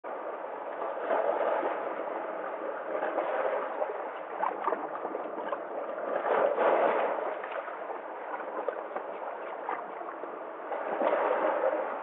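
Small sea waves washing and splashing among shoreline rocks, a steady rush of water that swells and eases with each wave, loudest a little past the middle and again near the end.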